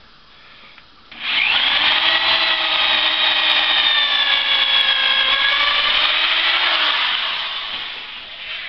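Corded electric drill with a 1/4-inch bit boring through two clamped wooden boards: a steady whine that starts about a second in, drops a little in pitch midway as the bit loads up, and winds down near the end.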